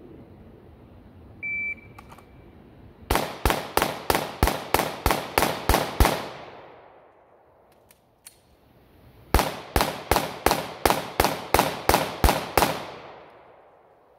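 A shot timer's start beep, then a Glock 19X 9mm pistol fired in two rapid strings of about a dozen shots each, roughly four shots a second, each shot ringing out briefly. About three seconds separate the strings, with a few faint clicks in between.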